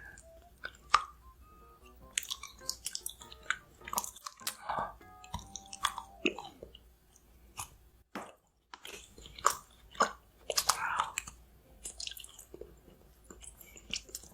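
Close-miked chewing and biting of food, with many short crisp bites and clicks, over soft background music.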